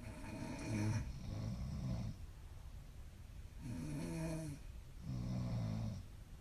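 Young woman snoring in sleep: two breaths about three and a half seconds apart, each a low, pitched snore in two parts.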